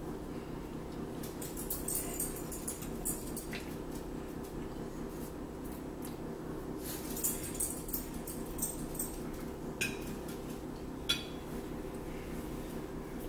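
Eating sounds close to the microphone: chewing and sharp mouth clicks in two spells, then a few single clicks, over a steady low hum.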